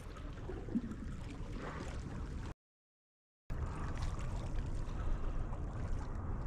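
Small lake waves lapping and gurgling against shoreline rocks, a steady low wash. A little over two seconds in, the sound cuts out to dead silence for about a second, then resumes.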